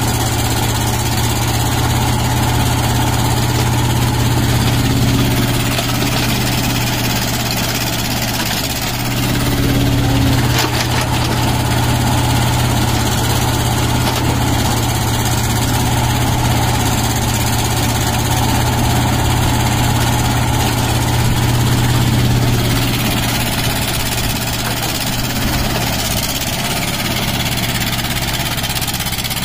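Tata Hitachi mini excavator's diesel engine running steadily with a low hum while the excavator digs, its level swelling and dipping slightly with the working load.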